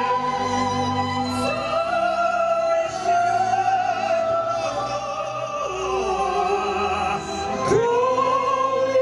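A group of voices singing a slow song together, holding long notes that glide slowly from one pitch to the next.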